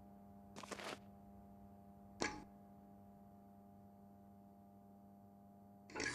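Faint, steady electric hum of street lamps, with two short swishes, about a second and about two seconds in. Near the end a loud rushing noise cuts in.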